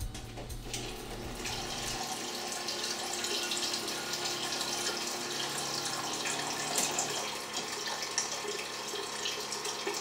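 Flojet bottled-water dispenser pump running steady while water flows from the fridge dispenser into a pot, a steady rushing hiss that gets brighter about a second and a half in.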